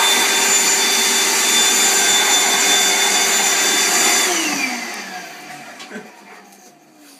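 Red handheld vacuum cleaner running at full speed with a steady high whine, switched off about four seconds in, its motor whine falling in pitch as it winds down.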